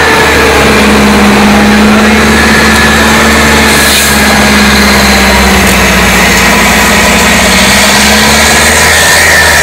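Avia trial truck's diesel engine running steadily at low revs as the truck crawls slowly over rough ground.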